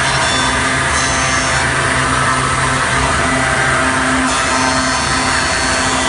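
3-axis CNC wood lathe running, its vertical spindle cutter milling the profile of a wooden spoon blank: a steady machine hum and whine with the hiss of wood being cut, brighter between about one and a half and four seconds in.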